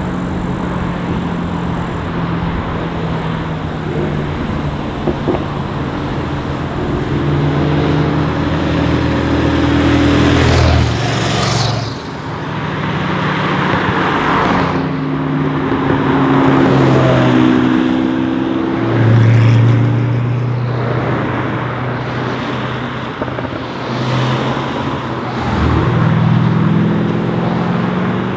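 Several sports cars and supercars driving past one after another, their engines accelerating hard with the pitch climbing and dropping back at each gear change.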